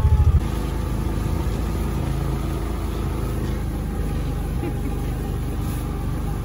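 Utility vehicle's engine drops from a louder running note to a steady idle about half a second in, then keeps idling.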